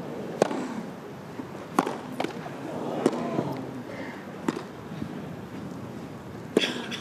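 Tennis rally: a ball struck back and forth by rackets, with about six sharp pops spaced a second or two apart, over a low crowd murmur.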